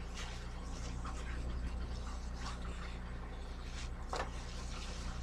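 Wet cloth rubbing over a stovetop in irregular wiping strokes, one firmer stroke about four seconds in, over a steady low hum.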